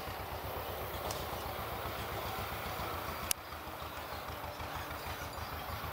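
An engine running steadily, heard as a low, fast, even throb. A single sharp click about three seconds in.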